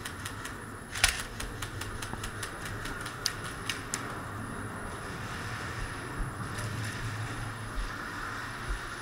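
Airsoft gunfire: a quick, irregular run of sharp clicks and cracks, about five a second, with one louder crack about a second in, dying away after about four seconds.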